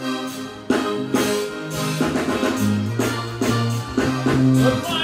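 Live band playing a steady groove with a moving bass line and regular drum strokes, an electric guitar among the instruments.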